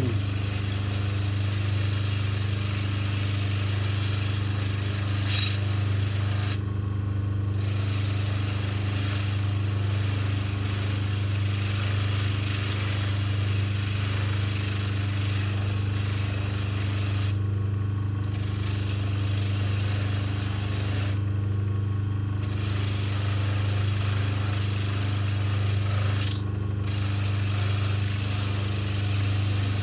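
Baldor bench motor running steadily, with a steel gun frame pressed against the coarse sandpaper roll on its spindle: a continuous rasping sanding noise over the motor's hum, taking deep rust off a curved surface. The rasping drops out briefly four times as the part is lifted off the paper.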